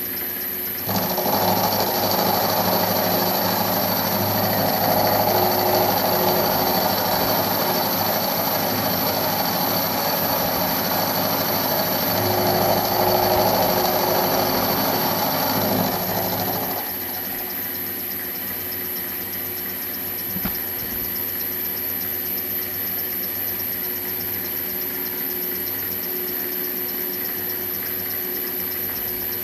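Milling machine spindle running with an end mill cutting a metal block held in a vise. A louder, gritty cutting noise starts about a second in and stops at about seventeen seconds, leaving the machine's steady running hum.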